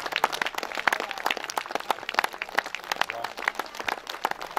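Crowd applauding, many hands clapping irregularly.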